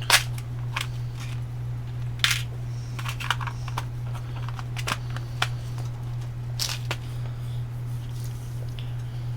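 Scattered small clicks and rustles of small electronic parts being handled on a workbench, over a steady low hum.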